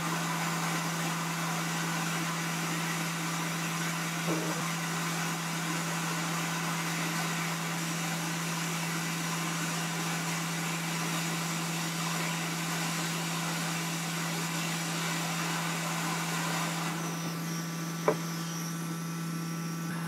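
Hot air rework station blowing steadily on a circuit board, a continuous airflow hiss over the station's steady fan hum, while an SMD connector is being desoldered. A light click comes about four seconds in and another near the end.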